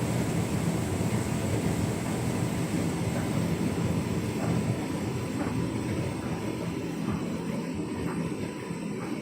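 Hotpoint Ultima S-line tumble dryer running its Heat and Enjoy warming program: a steady rumble of the turning drum and blower fan. Faint light knocks come about once a second from about three seconds in.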